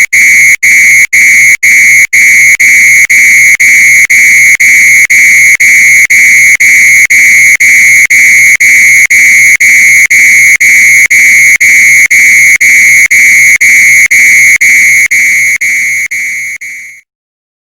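Fire alarm sounding a loud, high-pitched tone broken by short gaps about twice a second. It fades out and stops near the end.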